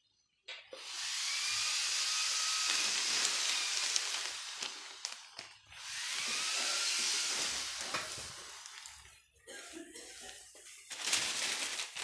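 Plastic sheeting rustling and rubbing close to the microphone: two long swells of hiss, the first about five seconds long and the second about three, then softer scattered rustles and a few clicks near the end.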